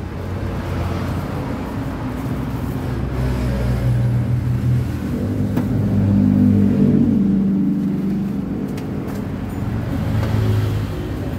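Road traffic: motor vehicle engines running and passing close by. It grows louder around the middle as one vehicle accelerates with a rising engine note.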